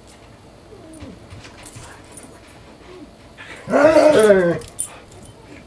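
A dog vocalizing during rough play. A faint short whine comes about a second in, then a loud, wavering drawn-out call lasts about a second, a little past the middle.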